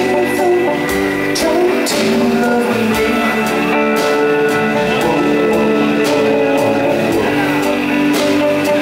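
A rock band playing live: electric guitar and electric bass over a drum kit, with drum and cymbal hits all along.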